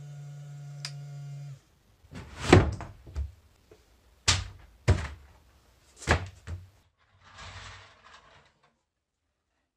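A steady electric hum cuts off, then a series of heavy knocks or thuds, about four loud ones over four seconds with the first the loudest, followed by a short rustle.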